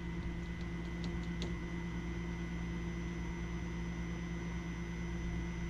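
Small built-in vacuum pump of a Fieldpiece pressure switch tester running with a steady hum, drawing suction on a furnace pressure switch. A few faint ticks in the first second and a half.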